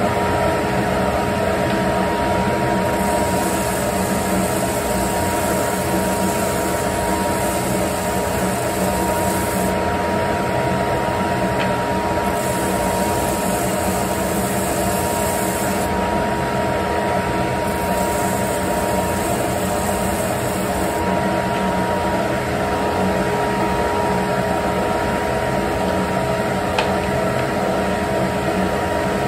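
Ridgid oscillating spindle/belt sander running steadily in belt mode, its motor whine holding one pitch. Three times for several seconds a strip of wood is pressed to the sanding belt, adding a higher sanding hiss.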